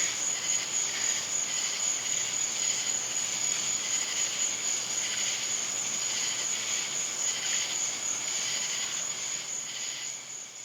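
Chorus of night insects such as crickets: a steady high-pitched trill with a pulsing chirping chorus beneath it, fading out near the end.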